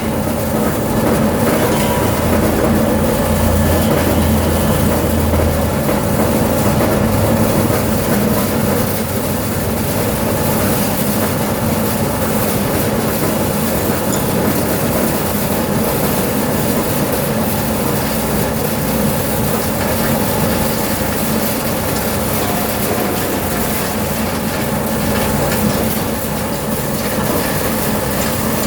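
Industrial machinery running continuously: a steady mechanical hum with a dense clattering rattle.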